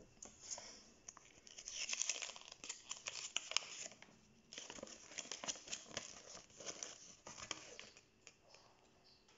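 Crinkling and tearing of toy packaging handled up close: a small LOL Surprise packet and its folded paper insert being opened by hand. The rustling comes in two spells with a short pause about four seconds in, and dies away near the end.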